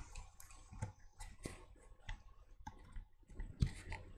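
Scattered clicks of a computer mouse and keyboard, irregularly spaced, with one louder knock near the end.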